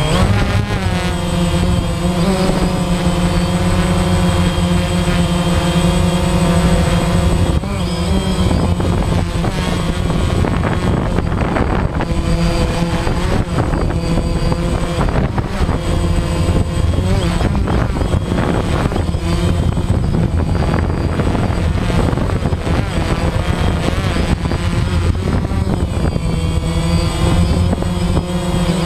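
DJI Phantom quadcopter's four motors and propellers whining loudly and steadily, heard up close from the camera on the drone. The pitch wavers and shifts as it lifts off and climbs, most noticeably from about eight seconds in.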